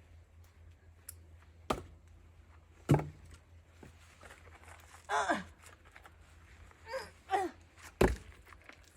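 Axe striking oak firewood being split: three sharp knocks, the loudest about three seconds in and another near the end. Short exclamations with falling pitch come in between.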